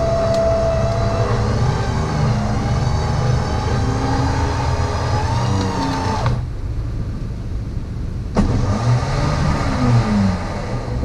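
Car engine running under load with the revs rising and falling as one car takes up a tow strap to pull the other. A sharp click about eight seconds in.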